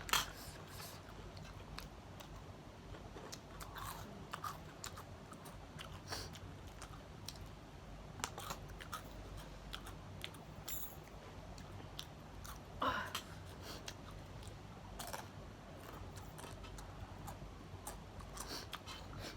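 Mouth-close eating sounds: chewing and crunching of spicy snack food such as Kurkure and potato chips, with many small scattered clicks. Two louder short knocks stand out, one right at the start and one about two-thirds in.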